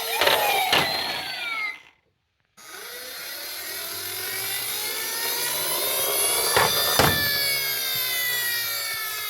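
Toy emergency-vehicle siren wailing in a slow sweep, its pitch rising for several seconds and then falling. The sound cuts out completely for about a second near the start, and a sharp click comes near the top of the rise.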